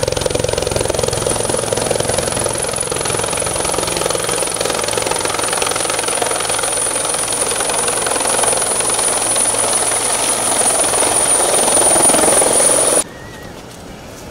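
Bell 412 helicopter descending to land, its rotor beating and its turbines running with a steady high whine. The sound cuts off abruptly about 13 seconds in and gives way to quieter background.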